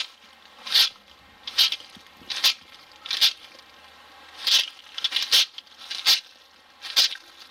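Swishing, scraping footsteps in a steady walking rhythm, about one every 0.8 seconds, each loud against the near-quiet between them.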